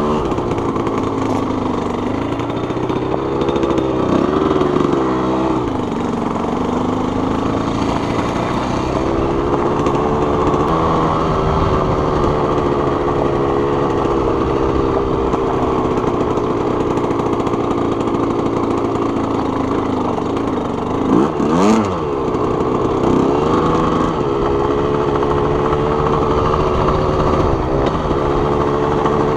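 A 1987 Suzuki RM125's single-cylinder two-stroke engine running under way as the bike is ridden, its pitch rising and falling with the throttle, with one quick sharp rev and a click about three-quarters of the way through. The clutch is slipping badly and the carburetor isn't running right.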